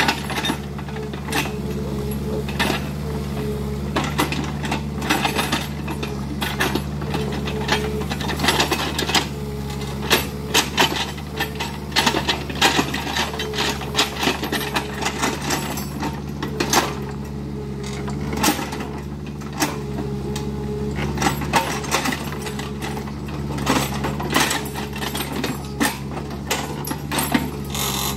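Kubota mini excavator's diesel engine running steadily under work, with frequent sharp knocks and cracks from the machine working through brush and trees.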